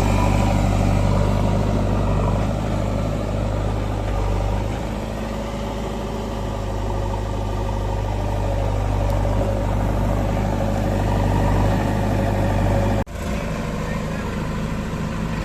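Diesel engine of heavy earth-moving machinery running steadily at a low, even speed. Near the end the sound breaks off for an instant and then picks up again.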